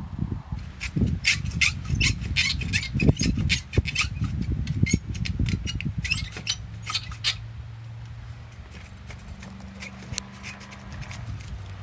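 Handsaw cutting dead tree wood in quick back-and-forth strokes, each stroke a rasping scrape; the sawing stops about seven seconds in.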